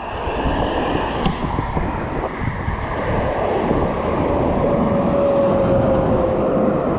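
Strong gusty wind buffeting the microphone with a heavy, shifting rumble. A faint steady whine joins it from about halfway through.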